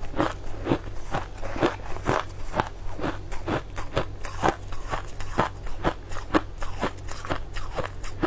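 Shaved ice crunching as it is chewed close to the microphone, in a steady run of crisp crunches about two a second.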